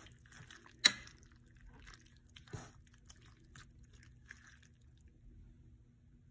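Metal spoon stirring a pot of wet vegetable and shrimp stew: soft, wet stirring with scattered light ticks and a sharp clink of the spoon against the pot about a second in. A faint steady hum runs underneath.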